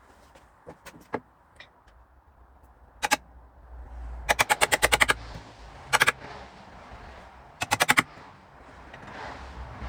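Hammer striking a wood chisel in quick runs of sharp taps, squaring out the rounded corners of a routed hinge recess in a door.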